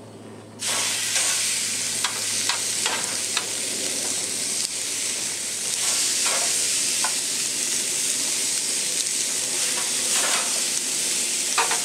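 Oil-marinated pork neck steaks sizzling on the grate of a gas grill preheated to about 300 °C, the sizzle starting suddenly about half a second in as the first steak goes down. Metal tongs click against the grate several times over the sizzle as more steaks are laid on.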